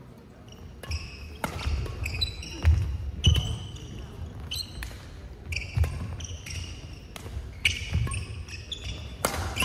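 Badminton rally in a large hall: racket hits on the shuttlecock and players' shoes squeaking and thudding on the court floor, in an irregular run of sharp knocks and short high squeaks.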